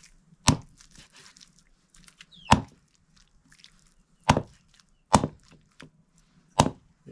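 A blade chopping buffalo meat for curry: five sharp chops, spaced irregularly a second or two apart.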